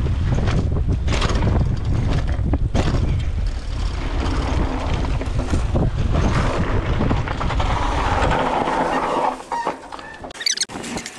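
Wind buffeting the microphone of a chest-mounted camera on a moving mountain bike, with knocks and rattles from the bike as it rolls over grass and paving slabs. The wind rumble drops away about nine seconds in.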